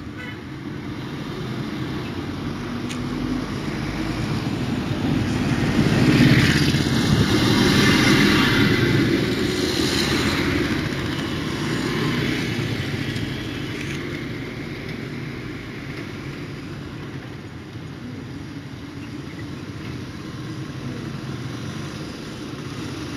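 A motor vehicle's engine noise swelling to a peak about six to ten seconds in, then slowly fading.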